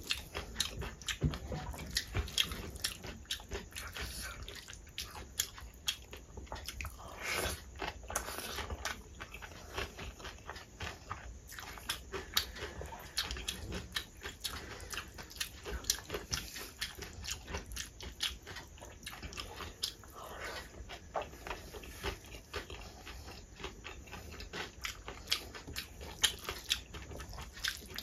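Close-miked eating sounds: wet chewing and lip smacks, with fingers squishing and mixing rice, dal and crisp shredded potato fry on a steel plate. It comes as a dense, uneven run of small clicks and smacks.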